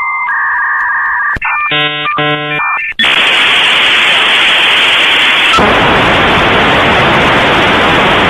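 Electronic beep tones, then a quick run of harsh buzzing tones, then loud steady static hiss from about three seconds in.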